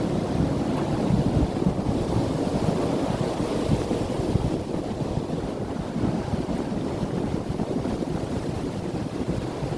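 Strong wind blowing across the microphone: a dense, low rushing noise that swells and eases in gusts.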